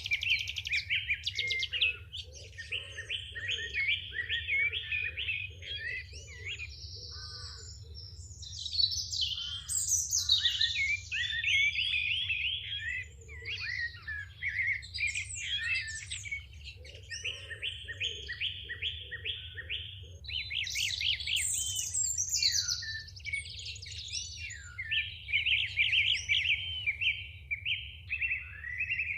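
A songbird singing a long, varied song of rapid trills and chirps with short pauses between phrases, over a faint steady low hum.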